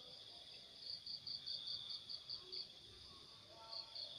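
Faint insects chirping: a high, evenly pulsed chirp at about five pulses a second, coming in two spells, over a steady high trill.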